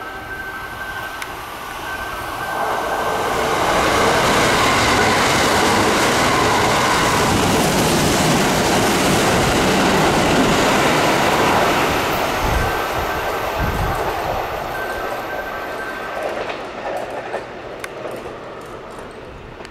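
Kintetsu 22000 series ACE limited express electric train passing through a station at speed without stopping. The rush of the train builds over a couple of seconds, stays loud for about eight seconds as the cars go by, then fades away.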